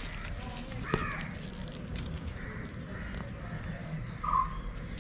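A crow caws once near the end over faint crackling and rustling, as hands pull apart the soil-caked roots of an Aglaonema clump.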